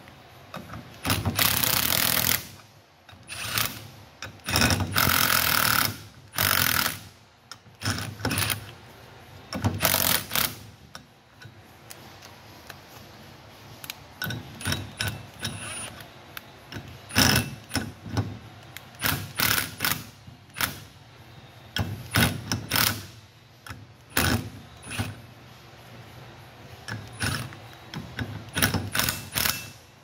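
Cordless impact wrench running on the wheel studs of a Toro 3505-D hub in bursts of about a second, with many short sharp metal knocks in between, as the new studs are seated.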